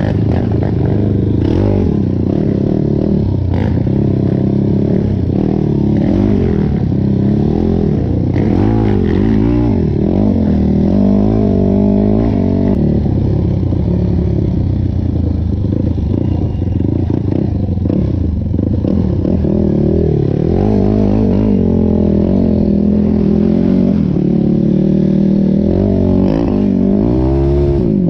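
Quad (ATV) engine running under way on a dirt trail, its pitch rising and falling as the throttle is worked, with rattles and knocks from the machine over bumps.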